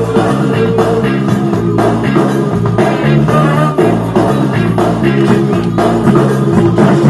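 Loud funk-style music with electric guitar and a steady beat played by the DJ for the dance battle.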